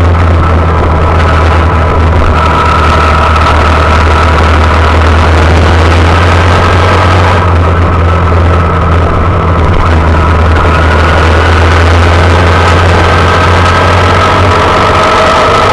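Honda Monkey's small single-cylinder four-stroke engine running at a fairly steady speed while riding, with a constant rush of wind noise on a handlebar-mounted camera.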